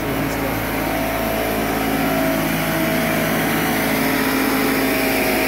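A pancake air compressor running steadily while compressed air hisses from a blow gun, blowing cutting debris out of the channels of twinwall polycarbonate glazing sheets.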